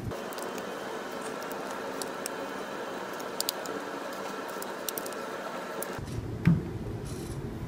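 Light metallic clicks of a long-handled wrench turning the cylinder head bolts on a Toyota 1SZ engine, a pair about halfway through, over a steady room hiss, with one louder knock near the end.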